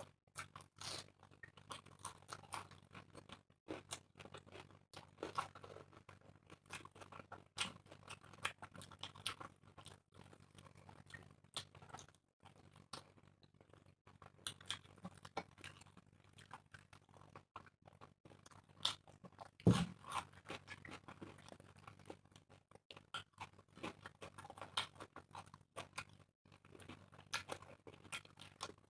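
Puris and egg curry being eaten: chewing and tearing of the fried bread, with many small irregular clicks and scrapes and one loud knock about twenty seconds in, over a faint low hum.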